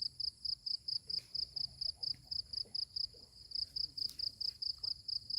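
An insect calling in a steady train of high-pitched chirps, about five a second.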